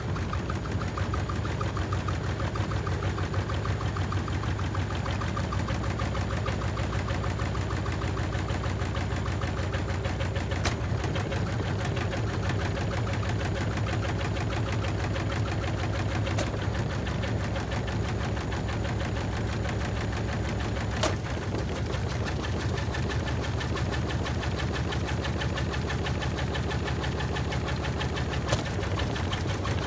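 Washing machine spinning its drum at speed: a steady hum with a fast, fine rattle, and a few sharp clicks or knocks along the way.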